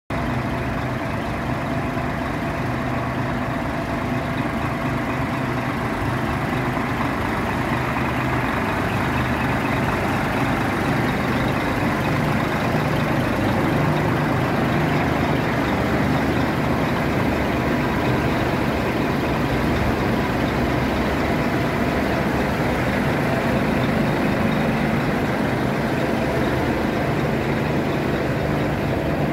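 Scania R480 tipper truck's inline-six diesel engine idling steadily.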